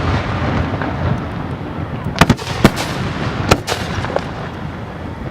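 Aerial fireworks going off at close range: a continuous wash of crackling bursts, with a run of sharp bangs from about two seconds in, some in quick pairs.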